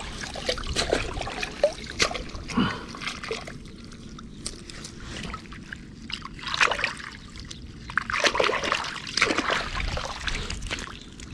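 Water splashing, sloshing and trickling in irregular bursts, heavier in the second half.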